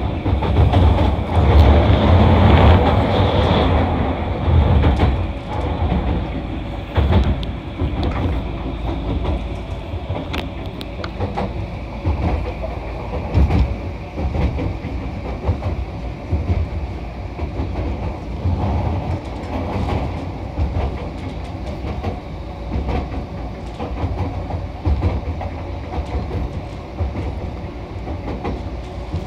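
SkyTrain car running at speed, heard from inside: a steady rumble with rhythmic wheel clatter. It is louder and brighter for the first few seconds, then settles to a lower, even run.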